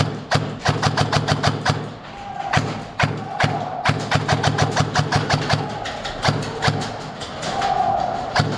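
Music with a busy percussive beat of sharp, wood-block-like clicks over a pulsing bass.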